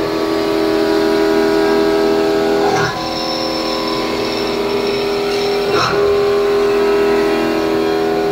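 Weida VM 850 vertical machining center milling a metal block: a steady, loud machine whine of several tones from the spindle and end mill cutting. About every three seconds the tones briefly break and resume.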